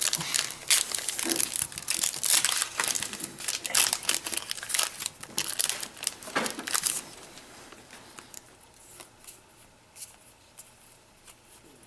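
A foil trading-card booster pack being torn open and crinkled, a dense run of crackling for about seven seconds. After that it turns to quieter, scattered light rustles and ticks of the cards being handled.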